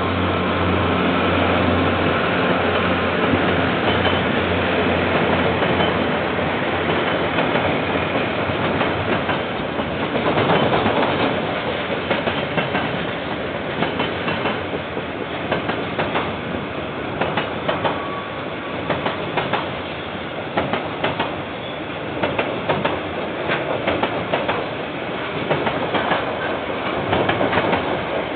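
KiwiRail container freight train rolling past, its wagon wheels clicking over rail joints in a running clickety-clack. A low steady hum in the first several seconds fades as the wagons go by.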